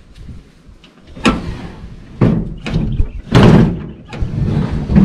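Aluminium tinny being hand-pulled off a ute's roof rack, the hull knocking and scraping on the rack: a series of sharp knocks, with the loudest and longest scrape about three and a half seconds in.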